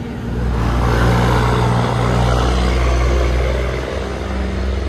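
Engine hum and road noise inside a moving vehicle's cabin, swelling louder about half a second in and easing off slightly near the end.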